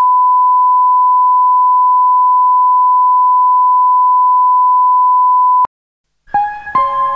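Steady 1 kHz line-up test tone of the kind played with colour bars, cutting off abruptly about five and a half seconds in. After a short gap, music with sustained notes starts near the end.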